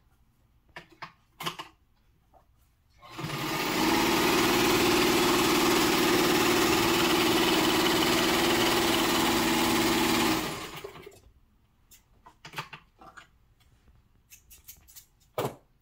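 Electric domestic sewing machine stitching at a steady speed for about seven seconds, speeding up about three seconds in and running down to a stop. A few light clicks come before and after the run, the sharpest near the end.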